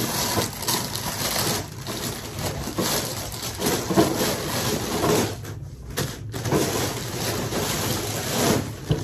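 Crinkling and rustling of plastic packaging and cloth as a new dress shirt is pulled out of its wrapping and handled, with a short lull in the middle.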